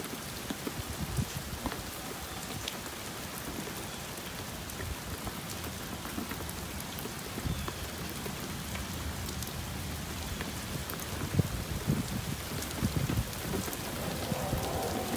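Steady summer rain falling, a constant hiss with many separate drops tapping close by. A low rumble swells in near the end.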